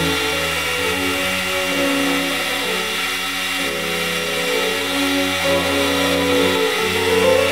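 Sandpaper hissing against a eucalyptus blank spinning on a wood lathe, under background music whose notes change about once a second.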